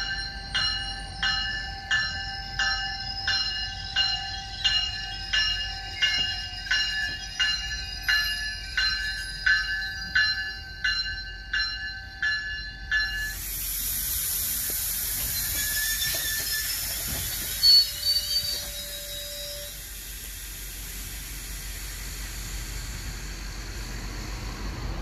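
A GO Transit train's bell ringing steadily, about three strikes every two seconds, as the double-deck train draws into the station; it stops about 13 seconds in. A steady air hiss from the standing train follows, with a brief loud knock and a short tone a few seconds later.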